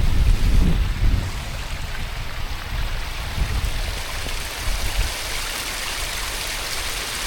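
Stream water running steadily. Low wind buffeting on the microphone is heard in about the first second.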